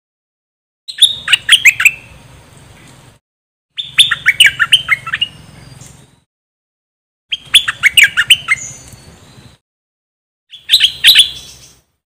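Stripe-throated bulbul song: four short bursts of quick, sharp falling notes, each burst lasting a second or two, with silent gaps between.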